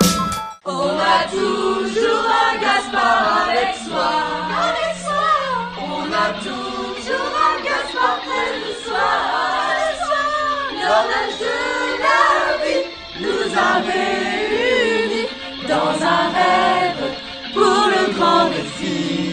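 A group of teenagers singing together, boys' and girls' voices in one loud chorus.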